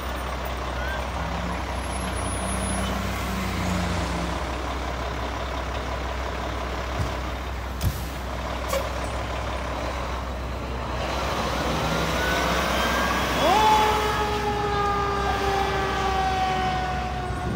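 Fire engine's diesel engine rumbling as it pulls out and moves off, with a few short sharp knocks near the middle. Its siren starts about three-quarters of the way through, rising quickly and then wailing slowly down in pitch.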